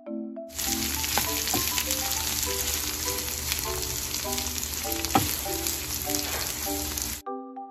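Diced carrots and corn sizzling in butter in a nonstick frying pan while being stirred with a wooden spatula. The sizzle starts about half a second in and cuts off abruptly just before the end, with light mallet-tone background music running underneath.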